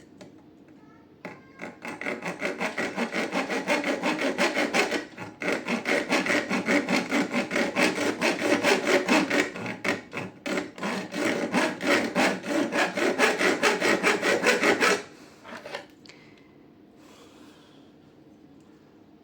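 Hand saw, most likely a hacksaw, cutting a slot into the end of a door lock's screw held in a vise. It makes steady back-and-forth strokes at about four a second, with short pauses near 5 and 10 seconds in, and stops about 15 seconds in.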